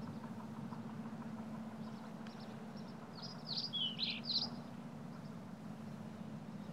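A bird chirping a quick run of sweeping calls about three seconds in, with fainter chirps around it, over a steady low hum of ambience.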